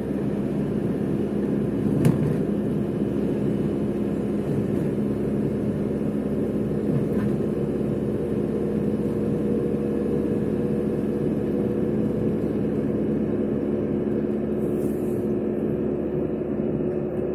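A car's steady engine hum and tyre rumble, heard from inside the cabin while driving at a constant speed, with one short knock about two seconds in.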